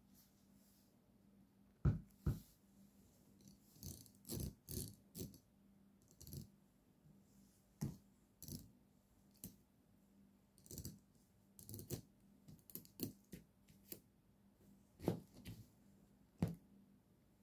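Irregular light clicks and taps of a pen as a cat bats at it with its paws over a notebook, in scattered bunches.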